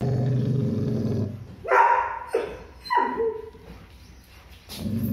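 Labrador retriever giving a low, steady growl, then three sharp barks in quick succession, then growling again near the end: fear-based aggression.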